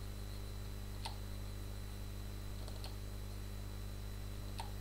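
About four faint, scattered clicks from working at a computer, over a steady low hum.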